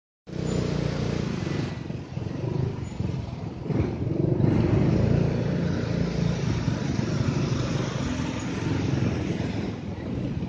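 Motorcycle engine running steadily under way, heard from on board while riding in city traffic, with a continuous rush of road noise over it.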